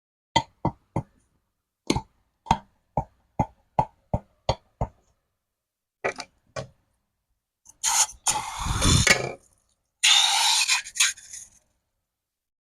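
Slime being handled: a quick run of short, wet popping clicks, then two longer squishing, crackling stretches near the end.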